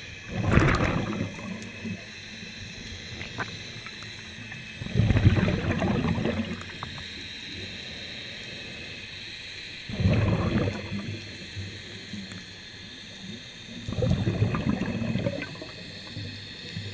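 Scuba diver's exhaled bubbles bursting from the regulator underwater, four breaths about every four to five seconds, each bubbling for about a second.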